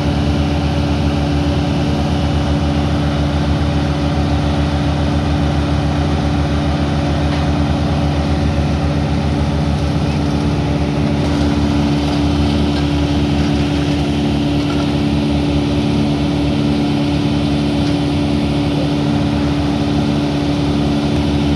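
Engine of a homemade wood chipper running at a steady speed, a constant hum with no breaks.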